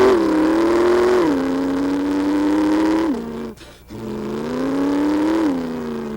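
A man imitating a dragster's engine with his voice: a loud, held engine note that steps down in pitch twice like gear changes, breaks off briefly about three and a half seconds in, then climbs and holds again before falling away near the end.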